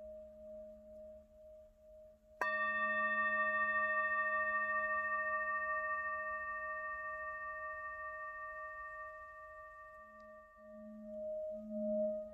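A single struck bell tone about two seconds in, ringing with several overtones and slowly fading over some eight seconds, above a soft, steadily pulsing low drone.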